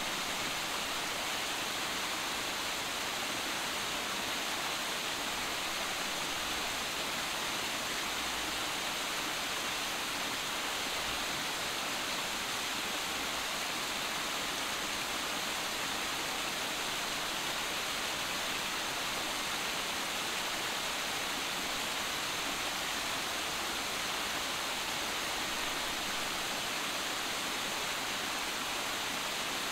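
Water spilling down a small rock waterfall, making a steady, even splashing rush that does not change.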